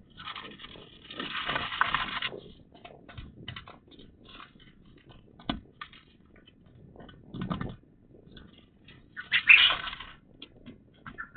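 Pet birds moving about in and around their cage: scattered small clicks and scratches, with a louder noisy burst about a second in and another near the end.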